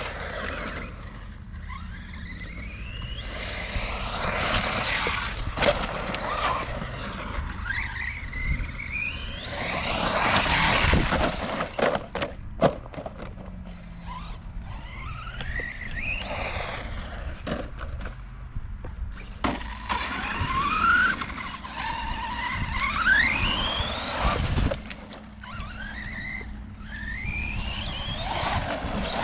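Redcat Camo TT Pro RC trophy truck running on a dirt track: its brushless electric motor whines up in pitch with each burst of throttle, over tyre and dirt noise. There are a few sharp knocks near the middle.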